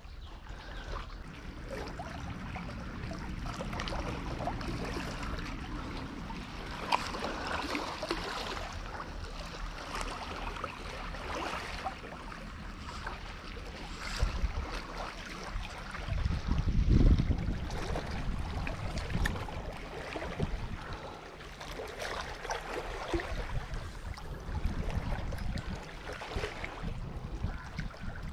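Small waves lapping and washing against shoreline rocks, a steady wash of water. About two-thirds of the way through there is a louder low rumble.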